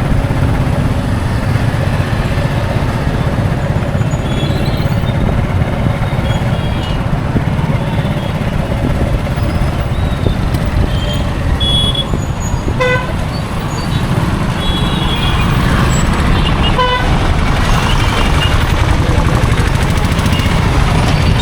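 Busy road traffic running steadily, a continuous low rumble of engines and tyres, with scattered short horn toots and two clearer short honks in the second half.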